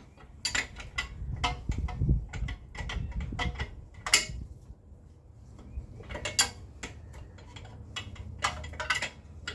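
Irregular metallic clinks and knocks of hand tools and steel parts being handled during car brake and wheel-hub work, with a couple of sharper strikes about two and four seconds in.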